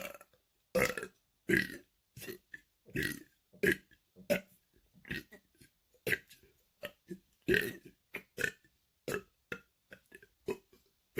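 A man burping the alphabet: a run of about two dozen short voiced burps, roughly two a second, each shaped into a letter. He stops short of the end.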